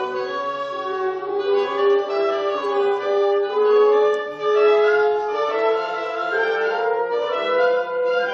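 Wind ensemble of flutes, oboe, cor anglais, clarinets, bassoons and horns playing classical chamber music live. Sustained chords under a held melody line that steps slowly upward in pitch.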